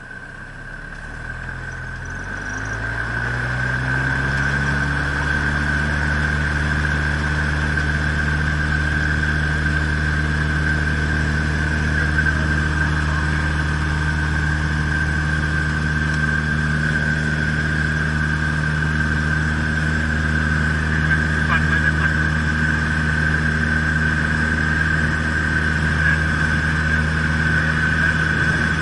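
Socata Rallye Commodore 150's four-cylinder Lycoming O-320 engine and propeller heard from the cockpit, opened up to full power over the first few seconds for the takeoff roll, then running steady and loud.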